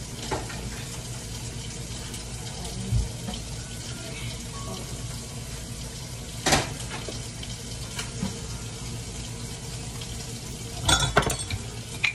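Steady hiss of a steaming stockpot boiling on the stove, with cookware knocks: a few light ones, one sharp clank about six and a half seconds in, and a quick cluster near the end.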